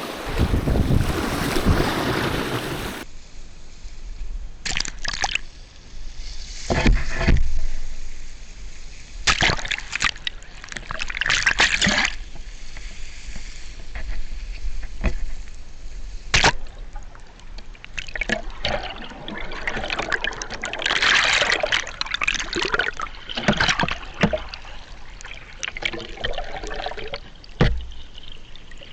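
Sea water splashing and trickling in irregular bursts. The first few seconds are wind blowing on the microphone.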